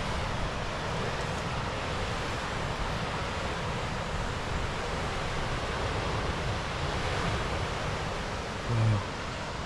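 Ocean surf breaking and washing over the rocks below a sea cliff, a steady rushing with wind buffeting the microphone. A short low hum sounds near the end.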